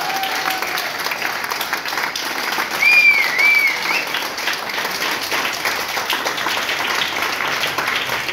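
Audience applauding, with a high two-note cheer from the crowd about three seconds in.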